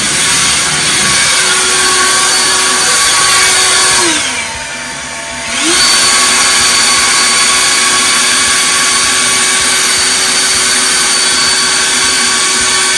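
EGO 56V cordless blower running at full speed with a steady fan whine. About four seconds in it winds down briefly and spools back up a second and a half later.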